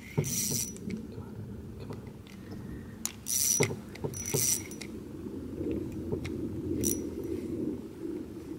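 Spinning reel being cranked while a hooked fish is fought, with four short high buzzing bursts, the drag giving line.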